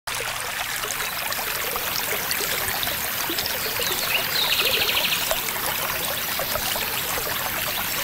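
Shallow river water running and trickling steadily. About halfway in, a brief, high, rapid trill sounds over it.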